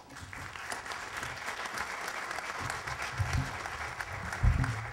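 Audience applauding, a dense clatter of many hands that starts suddenly, with a few low thumps in the second half.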